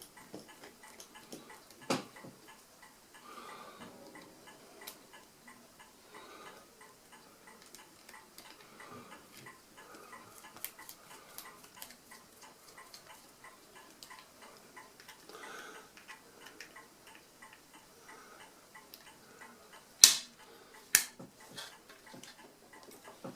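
Small metallic clicks and ticks of tools and parts being handled on a mechanical calculator under repair. There is a knock about two seconds in and two sharp, louder taps a second apart near the end.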